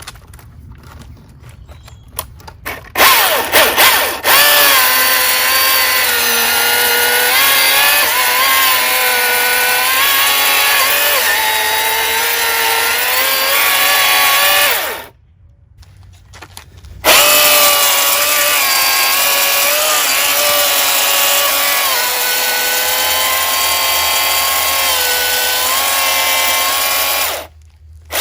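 Milwaukee M18 battery chainsaw's electric motor running with a steady whine whose pitch dips now and then. It starts with a few short bursts about three seconds in, stops for about two seconds midway, runs again, and cuts off just before the end. The saw is one that smokes as it runs.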